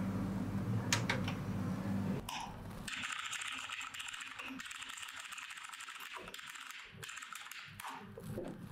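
Fast typing on a computer keyboard, a dense clatter of keystrokes that starts about three seconds in. Before it, a low steady hum with a few separate clicks.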